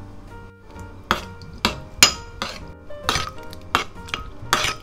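Metal spoon stirring a liquid sauce in a ceramic bowl, clinking and scraping against the bowl's sides about eight times, starting about a second in.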